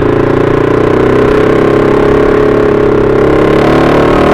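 Motorcycle engine running steadily while riding in traffic, its pitch wavering slightly with the throttle.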